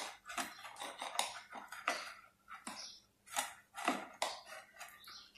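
Pliers gripping and turning a nut on a steel bolt to tighten it: a string of irregular short metallic clicks and scrapes, several a second.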